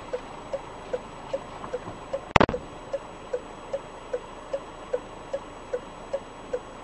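A stopped car's turn-signal or hazard flasher ticking steadily, about two and a half ticks a second, heard from inside the cabin. One sharp knock comes a little over two seconds in.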